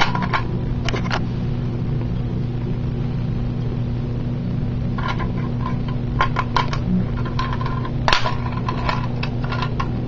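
Sharp metallic clicks and rattles from a Simplex 2099 fire alarm pull station being handled: a couple about a second in, then a busier run of clicks from about five seconds on, loudest just past eight seconds. A steady low hum sits underneath.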